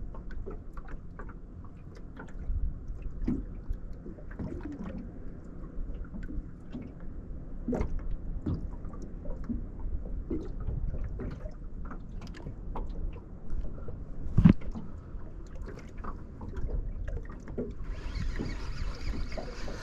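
Water slapping against a small fishing boat's hull as it drifts, with a low muffled rumble and scattered knocks and clicks. One louder knock comes about three-quarters of the way through.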